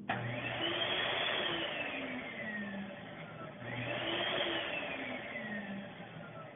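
Wall-mounted electric hand dryer switching on with a click and blowing. Its motor whine sweeps up in pitch and slowly sinks away, twice over, like a wavering wail, and it dies down near the end.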